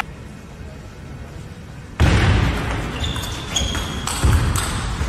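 Table tennis rally: the celluloid ball is struck back and forth, giving sharp clicks off the rackets and table about twice a second, each with a short high ping. The first two seconds are fairly quiet. The hall sound then cuts in suddenly about two seconds in, with a few low thuds.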